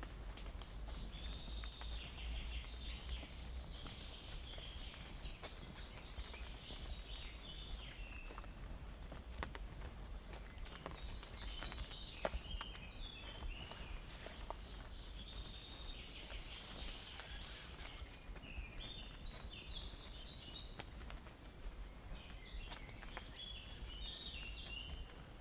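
Forest songbirds singing, several birds repeating short phrases of quick high notes, with footsteps on a forest path underneath.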